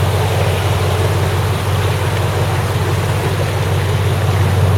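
A vehicle engine running steadily with a deep, even hum, under a wash of noise.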